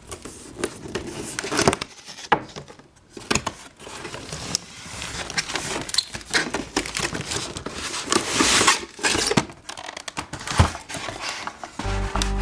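Toy packaging being handled and opened: crinkling and tearing with irregular small clicks and knocks. A burst of crinkling comes about two-thirds of the way in, and music starts at the very end.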